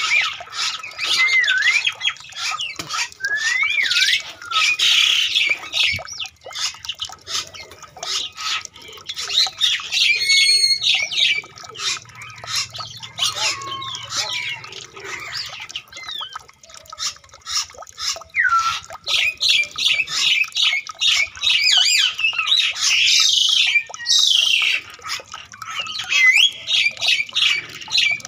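A chorus of birds calling: many short chirps, squawks and quick up-and-down whistles overlapping without pause, busiest about ten seconds in and again in the last few seconds.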